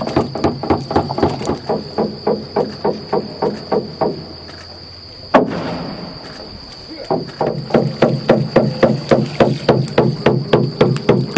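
Rapid, even wooden knocking, about three to four strokes a second, each with a short ringing tone. The knocking breaks off for about three seconds midway, with one sharp click in the gap, then starts again. A steady high whine runs underneath.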